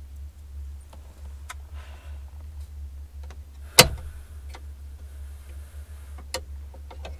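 Handling noise: scattered clicks and knocks with faint rustling as a man leans off-mic and moves things around, one sharp knock just before the middle being the loudest. A steady low hum runs underneath.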